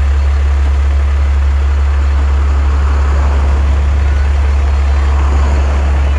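Heavy tow truck's engine idling close by: a loud, steady low rumble that does not change.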